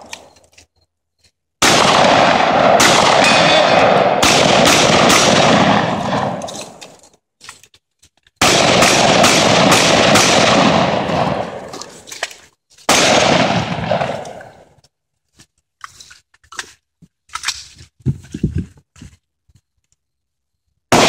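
Shotgun fired in rapid strings, several shots about half a second apart, with long echoing tails: one string about two seconds in, another about eight seconds in, and a single shot near thirteen seconds. Later come only faint clicks and knocks.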